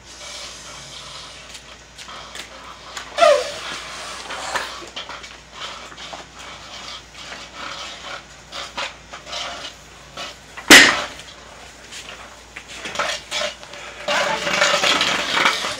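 Effortful breathing and a grunt during one-arm presses with a 68 lb plate-loaded iron dumbbell, with metal clinks. About eleven seconds in comes one loud heavy clank, the loudest sound, as the dumbbell goes down onto the rubber floor mat. Near the end there is a burst of heavy breathing and movement.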